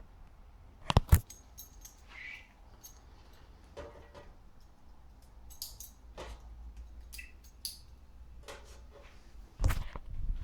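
Hands handling small metal parts and wire connectors while a new oven thermostat is wired back in: scattered small clicks and light metallic rattles, with two sharp knocks about a second in and a louder one near the end.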